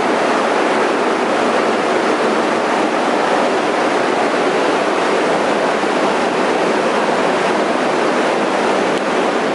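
LS V8-swapped BMW E46 running on a chassis dyno: a loud, steady roar that holds one level throughout.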